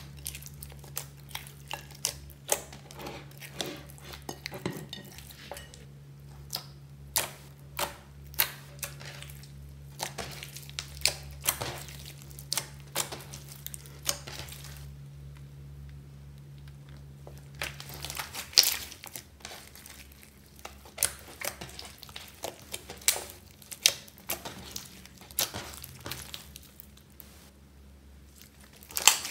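Hands kneading, squeezing and pressing clear slime packed with foam beads and glitter: irregular sticky pops and crackles, some sharper and louder than others.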